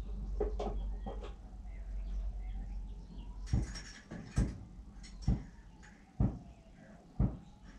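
A low rumble, then from about three and a half seconds in a series of five sharp knocks, about one a second.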